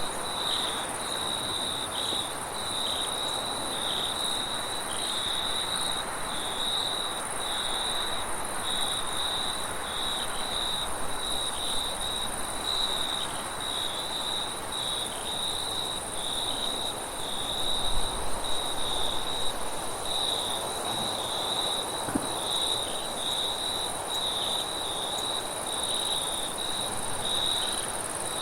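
Crickets chirping in a continuous high trill with short regular breaks, over a steady higher insect hiss and an even wash of wind noise. A few low rumbles come a little past halfway.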